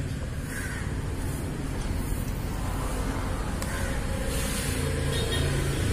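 Steady low background rumble, like distant road traffic, with two short bird-like calls, one early and one a little past the middle.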